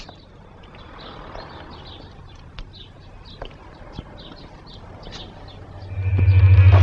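Birds chirping softly, with a few sharp clicks, then near the end a Buick convertible's engine starts up into a loud low steady drone.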